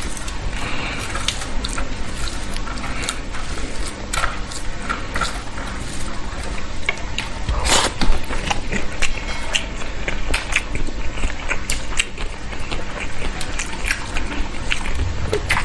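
Close-miked eating sounds of rice with bitter-gourd curry: chewing with many short mouth clicks and smacks, and one louder click about halfway through.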